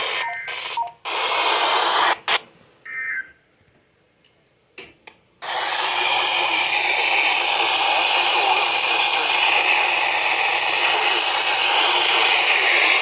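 Radio static: a band-limited hiss from a weather radio receiver with no broadcast voice. It cuts out about two seconds in, with a few clicks and a brief tone in the gap, then comes back as a steady hiss about halfway through.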